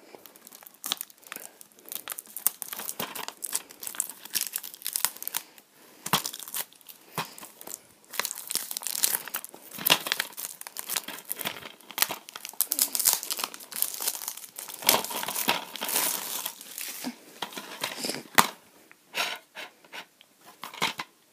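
Clear plastic shrink-wrap being torn and peeled off a DVD case, crinkling and crackling in irregular bursts. A sharp click near the end as the plastic case is snapped open.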